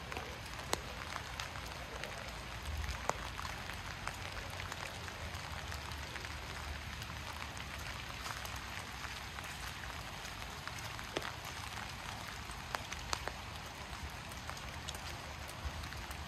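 Steady rain falling in a city street, with scattered sharper raindrop ticks over a low, steady rumble.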